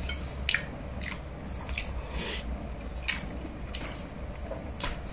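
A person chewing pork hamonado and rice with the mouth open, making wet smacks and clicks every half second or so.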